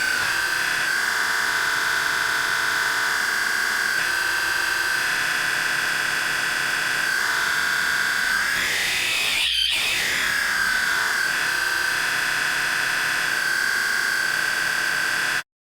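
Four's screech sound effect: one long, loud, high-pitched screech held at a steady pitch. About eight seconds in it wavers and flares up and down in pitch, then settles back to the same steady tone.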